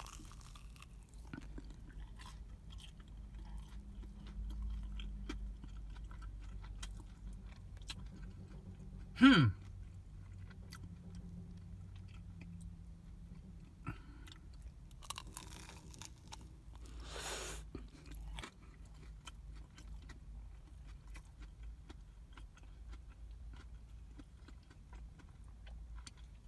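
A person chewing a bite of freshly fried falafel close to the microphone: soft crunching and many faint chewing ticks. About nine seconds in comes one brief, loud sound that falls in pitch.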